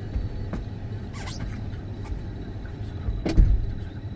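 A person coughing, with one sharp, loud cough about three seconds in and fainter short sounds earlier, over a steady low rumble.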